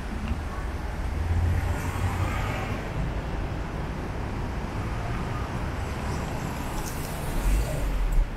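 A car coming up a narrow street and passing close by. Its engine and tyre noise build to a loud low rumble near the end.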